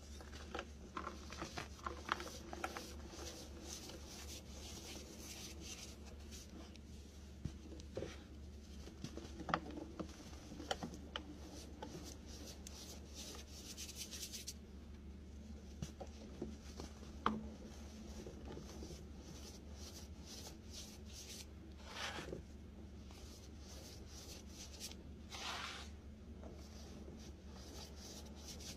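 Compressed baking soda shapes crushed and crumbled between fingers, with loose powder rubbed and sifted: soft, irregular crunches and crackles, a few louder crunches late on.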